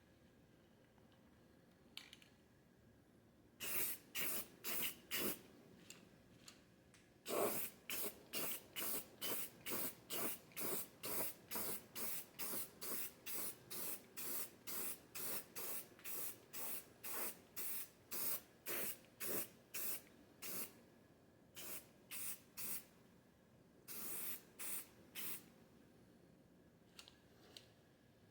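Aerosol spray paint can spraying in many short hissing bursts, roughly two a second, with a few brief pauses, as a second darker green coat goes on.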